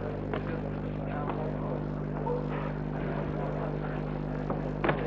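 Boxing-hall crowd murmur over a steady low electrical hum in the old recording, with a few sharp knocks from the ring.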